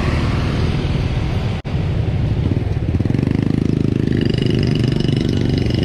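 Motorbike engine running at low speed in slow, dense street traffic, with a steady low rumble. The sound cuts out for an instant about a second and a half in. Later an even low pulsing of the engine comes forward, and a faint high steady whine joins near the end.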